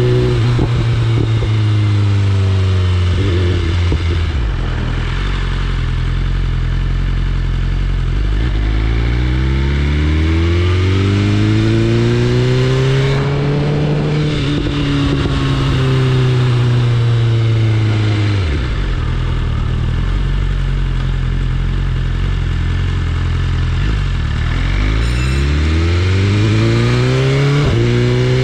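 BMW S1000RR's inline-four engine running under way, its note falling as the rider rolls off, then climbing twice as the bike accelerates, each climb ending with a drop in pitch.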